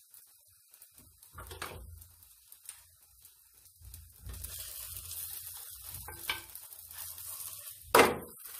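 Layered melwi (Moroccan msemen-style flatbread) frying in a little oil in a nonstick pan: a soft sizzle that sets in about halfway through, with a few light bumps earlier and one sharp knock near the end.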